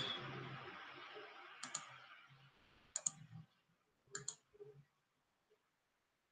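Computer mouse clicking: a few faint, sharp clicks, some in quick pairs, a couple of seconds apart, after a fading hiss, then near silence.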